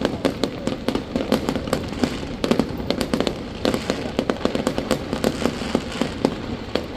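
Fireworks going off in a dense, irregular stream of sharp pops and crackles, many a second, with no pause.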